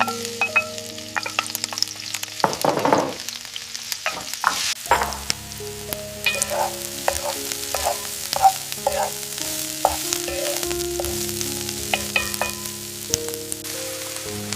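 Food sizzling as it fries in a pan, with a utensil clicking and scraping against the pan as it is stirred.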